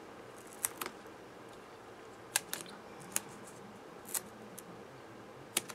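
Small fine-tip craft scissors snipping pieces off a strip of foam adhesive tape: several short, sharp snips at irregular intervals.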